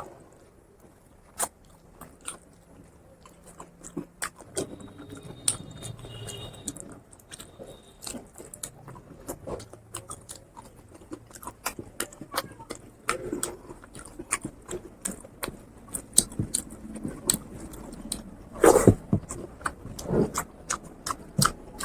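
Close-miked chewing and wet mouth clicks of a person eating fatty pork curry and rice, irregular smacks throughout, with a couple of louder ones near the end.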